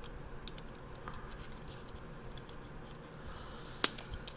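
Small product packaging being handled and opened by hand: faint scattered clicks and rustles, with one sharp click near the end.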